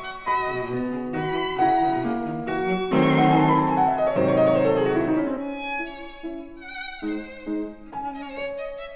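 Background music led by a violin, with a falling run of notes about halfway through.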